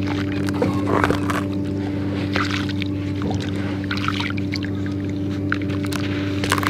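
Dry sand-cement crumbles sprinkled and dropped by hand into a tub of muddy water, with small splashes and gritty crackles here and there, then wet sand squeezed and dripping back into the water near the end. A steady low mechanical hum runs underneath and is the loudest thing.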